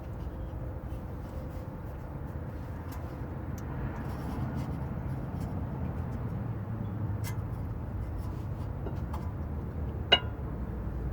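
Steady low background rumble with a few light clicks, and one sharp metal clink about ten seconds in, as brake caliper slide pins and hardware are handled.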